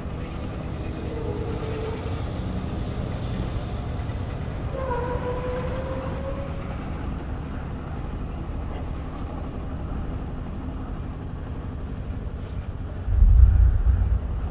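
Low, steady vehicle engine rumble, with a faint short rising tone about five seconds in. About a second before the end a much louder low rumble sets in.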